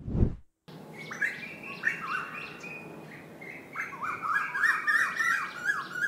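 Birds chirping and calling in many short, overlapping rising and falling notes, over a steady background noise. It starts just under a second in and grows busier in the last two seconds.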